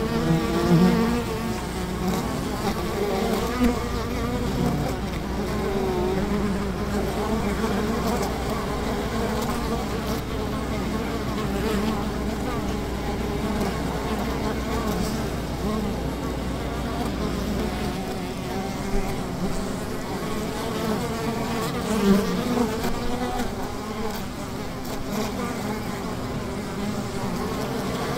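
Continuous buzzing with a wavering pitch, at a fairly steady level with a few brief louder moments. A low rumble underneath stops about two-thirds of the way through.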